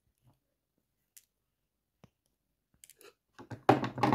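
Diagonal side cutters snipping the wire leads of a small soldered circuit: a few light clicks, then a louder cluster of clicks and clatter near the end.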